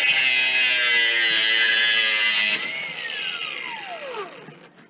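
Handheld power tool running at full speed, a steady whine under a loud harsh hiss. About two and a half seconds in it is released and winds down with a long falling whine.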